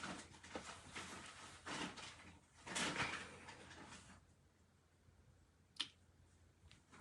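Handling noises: a few seconds of rustling and shuffling, then quieter, with one sharp click about six seconds in.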